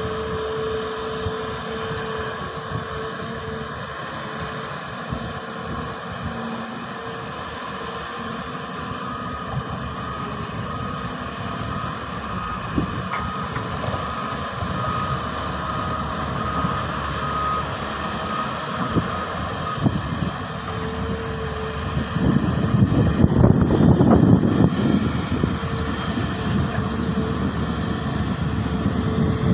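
Hydraulic crawler excavator (Hyundai) working: its diesel engine and hydraulics run steadily. A repeated warning beep sounds for several seconds in the middle, and near the end the machine surges louder under load.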